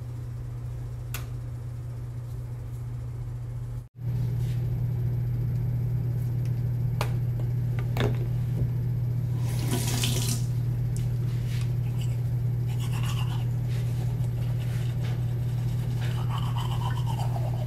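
A manual toothbrush scrubbing teeth, in short noisy bouts over a steady low hum, with a few light clicks.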